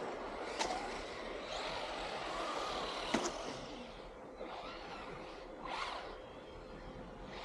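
Outdoor background noise of distant vehicles, slowly fading, with three sharp clicks spread through it.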